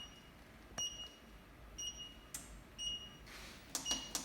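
Treadmill control panel giving short high beeps about once a second as its buttons are pressed to switch it on and set the speed, with faint button clicks between them.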